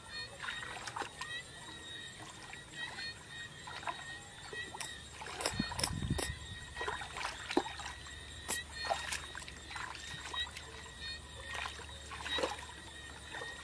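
Hands splashing and groping through shallow muddy water in irregular small splashes and sloshes, with a heavier splash about six seconds in.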